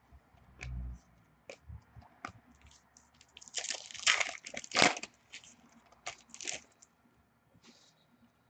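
A trading card pack's foil wrapper crinkling and tearing open: a dense crackle loudest about three and a half to five seconds in, with a shorter burst of crinkling a little later. Scattered light clicks and a soft thump of cards and packs being handled come before it.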